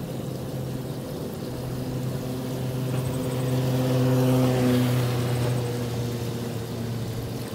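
A motor vehicle's engine hum with a hiss of tyres or water, swelling to its loudest about four to five seconds in and then fading, as of a vehicle passing along the flooded road.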